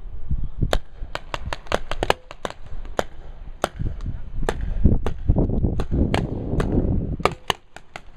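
Paintball markers firing: a run of sharp, irregular pops, about twenty of them, some in quick pairs and threes. A stretch of heavy low thudding comes in the middle.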